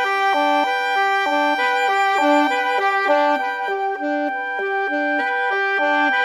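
Instrumental background music: a quick melody of short, evenly paced notes over a steady sustained high tone, played on a reedy or brass-like wind instrument.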